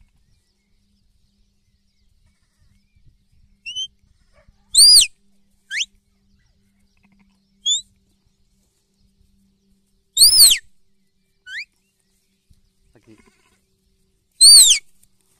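Newborn lamb bleating, three loud high calls a few seconds apart, each rising and falling in pitch. Short faint rising chirps come between the calls.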